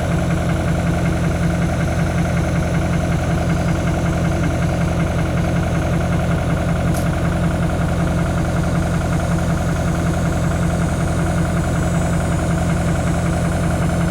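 Engine idling steadily, an even low running with a fine regular pulse; a short click about seven seconds in.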